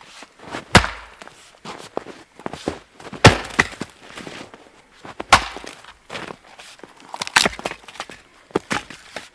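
Firewood being chopped: four hard blows on wood about two seconds apart, with lighter knocks and handling between them.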